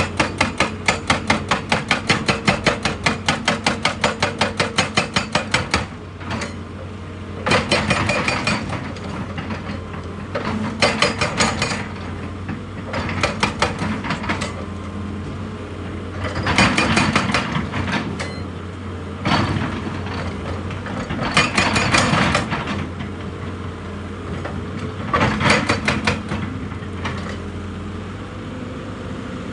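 Heavy earthmoving machine's engine running steadily under rapid repeated hammering strokes. The strokes come about five a second for the first six seconds, then in short bursts every few seconds.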